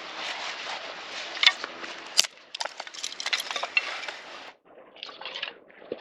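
Handling noises: scattered light clinks and knocks over a steady hiss, which cuts off abruptly about four and a half seconds in.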